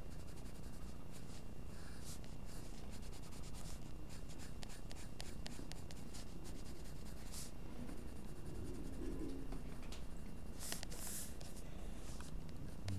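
Graphite lead of a metal mechanical pencil scratching across paper in many quick shading strokes, in bursts, over a steady low background hum.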